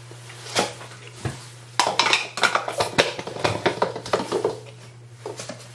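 Dishes and containers being handled and set down: a couple of single knocks, then a run of rapid clinks and clatter from about two seconds in until near the end.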